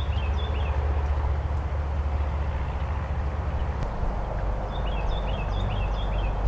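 Outdoor field ambience with a steady low rumble and hiss, and a songbird singing a short phrase of quick high notes twice: once just at the start and again about five seconds in.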